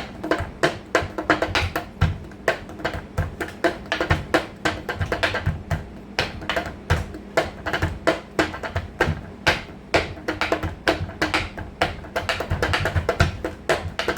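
Improvised drumming on household objects: quick, uneven taps and knocks, several a second, some with a deeper thud. A faint steady hum runs underneath.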